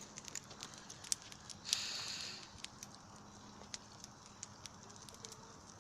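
Campfire crackling, with scattered sharp pops and a short hissing rush about two seconds in.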